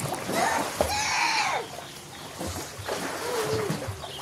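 A child's wordless voice: one drawn-out high call that rises and falls about a second in, and a shorter, lower one about three seconds in.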